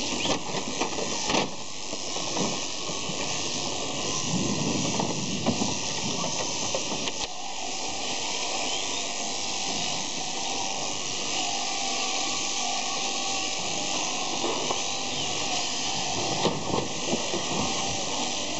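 Electric overhead-drive shearing handpieces running steadily while crutching sheep: a continuous hissing buzz with a few short clicks.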